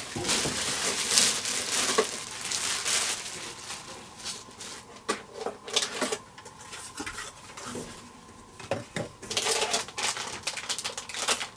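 Clear plastic bag rustling and crinkling as it is pulled off a coffee machine, busiest in the first three seconds and again about nine seconds in, with scattered light clicks and knocks between.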